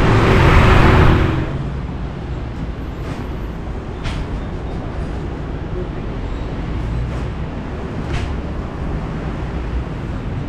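Street traffic ambience: cars running past with a steady low rumble, louder for about the first second and a half, with a couple of faint clicks.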